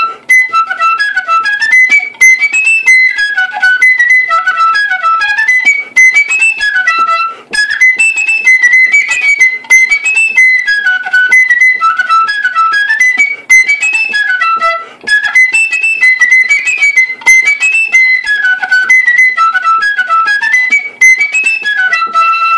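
Black side-blown flute played solo: a fast melody of short, crisp notes in phrases that repeat every few seconds, ending on a long held low note.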